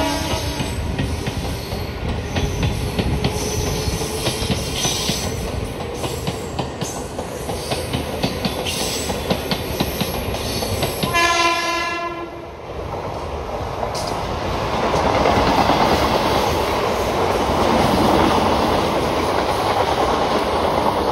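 Western Railway suburban electric multiple-unit local trains running past, the wheels clattering rapidly over the rail joints. A train horn sounds for about a second and a half a little past halfway, and from about two-thirds in a closer train passes with a louder, steady rushing rumble.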